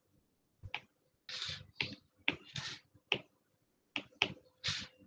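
Stylus tapping and scratching on a tablet's glass screen while handwriting: a string of short, sharp clicks mixed with a few brief scratchy pen strokes.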